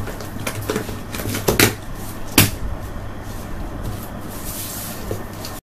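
Hands handling and opening a taped cardboard shipping box: cardboard scraping and rustling with a few sharp knocks, the loudest about two and a half seconds in, over a steady low hum.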